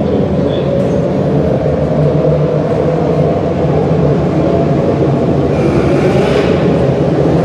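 A field of small dirt-track race cars running together around an indoor oval, their engines making a steady, dense drone of several overlapping pitches that echoes in the enclosed arena. A brief louder, hissier swell comes about six seconds in.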